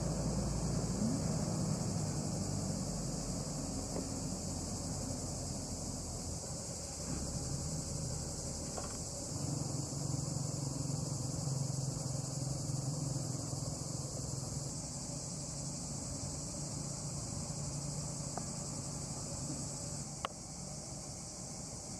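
Steady high-pitched insect chorus. A low steady hum runs underneath, and a single sharp click comes near the end.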